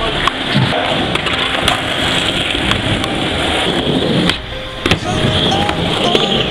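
Skateboard wheels rolling over rough asphalt, a steady rumble, with a few sharp clacks of the board. The rumble drops briefly about four seconds in.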